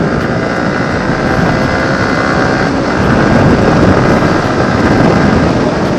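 Yamaha R15M's 155 cc single-cylinder engine running at road speed while the bike gathers speed, under heavy wind rush over the microphone.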